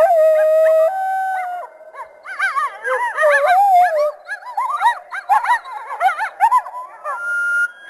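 Canine howling and yipping sound effect standing in for the extinct early canid Archaeocyon. A held howl note opens it, followed by a run of quick, warbling yips and howls.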